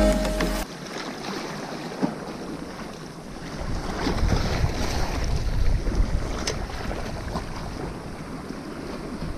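Wind buffeting the microphone over small sea waves lapping, with the gusts rumbling loudest about four to six seconds in.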